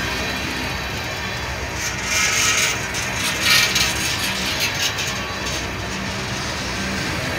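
Freight train tank cars rolling past at close range, steel wheels running on the rails, with two brief louder, higher-pitched bursts about two and three and a half seconds in.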